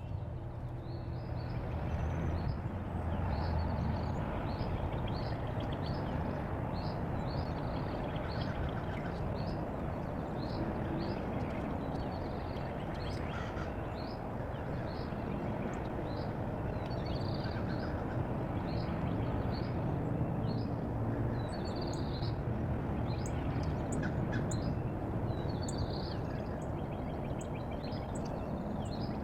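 Small birds chirping over and over, short high notes about once or twice a second, over a steady rushing background noise.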